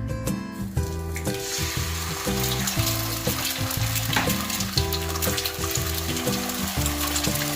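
Food sizzling as it fries in a hot pan, starting about a second in, under background music.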